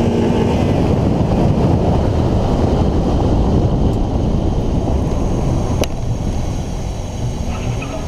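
Wind buffeting the microphone over the road and engine rumble of a 1999 Mazda Miata moving at speed, with no clear engine note held, easing off slightly in the last couple of seconds. A single sharp click nearly six seconds in.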